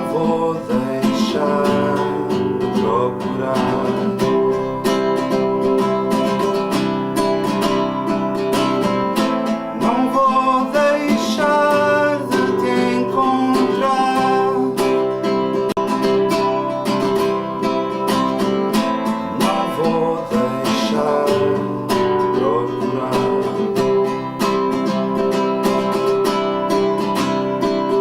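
Acoustic guitar strummed steadily through an instrumental break of a song.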